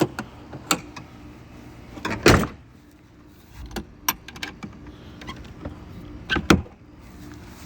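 Vehicle's rear barn doors and stainless steel latch being worked by hand: a series of separate clicks and knocks, the loudest about two seconds in and a double knock about six and a half seconds in.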